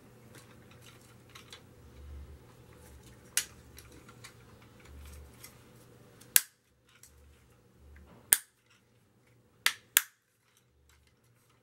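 Plastic hub caps being pressed onto the ends of a Sphero Ollie robot toy's body, with soft handling rustle and about five sharp plastic clicks as they snap into place, the loudest about six and eight seconds in and two close together near the end.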